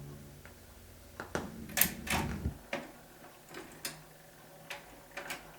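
The last chord of the orchestra dies away, then the 78 rpm record player gives scattered sharp clicks and light knocks over faint surface noise.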